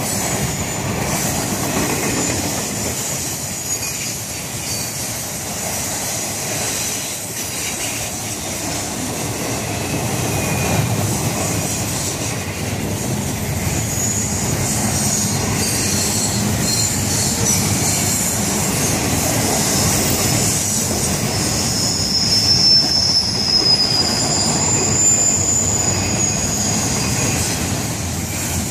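Double-stack container well cars of a freight train rolling past on a curve: a steady rumble of wheels on rail, with high-pitched wheel squeal that comes and goes and is strongest in the last third.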